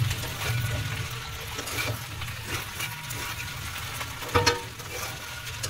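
Noodles stir-frying in a wok: a steady sizzle with a metal spatula scraping and clanking against the pan, and one sharper ringing clank about four seconds in.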